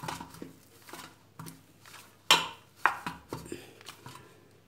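Stiff wheat-and-semolina dough being kneaded by hand in a stainless steel bowl: a few irregular knocks and slaps as the dough is pressed and the bowl shifts, the loudest a little over two seconds in.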